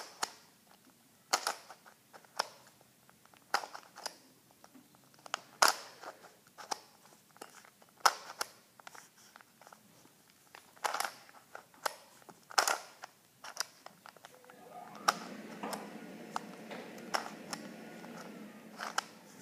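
Plastic twisty puzzle cube being turned quickly to scramble it: irregular sharp clicks and clacks as its layers snap into place. About fifteen seconds in, a steady low hum comes up underneath.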